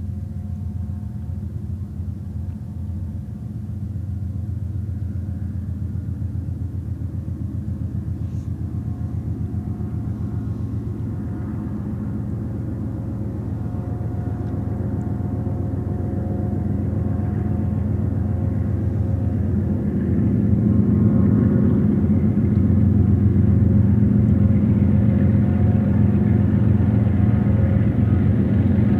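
BNSF GE C44-9W diesel locomotives pulling a double-stack freight train, a steady low engine drone that grows louder as the train approaches and steps up about two-thirds of the way through.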